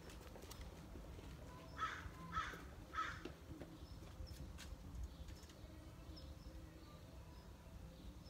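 An animal, most likely a bird, calls three times in quick succession, about half a second apart, over faint outdoor background noise.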